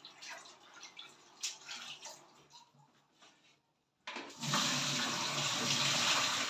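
A few faint clicks and knocks of handling, then, after a short silence, water pouring steadily from a bowl of chicken pieces through a plastic colander into a stainless steel sink as the chicken is drained.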